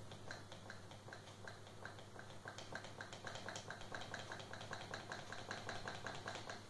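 Regular light clicking from a Volvo 940 instrument cluster under bench test, speeding up from about three to about six clicks a second as the speedometer reading climbs, then stopping near the end. A steady low electrical hum runs underneath.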